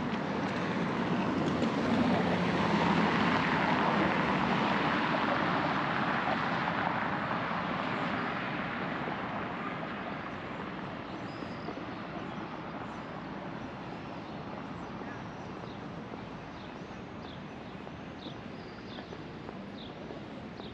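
Street traffic noise: a passing vehicle's rush swells over the first few seconds and fades slowly into a steadier city hum. In the second half a run of short, high, falling chirps repeats about once a second.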